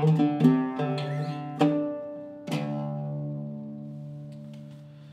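Zaryab oud with a cedar soundboard and Indian rosewood back, plucked with a plectrum: a quick run of notes, then a final note struck about two and a half seconds in and left to ring out and fade.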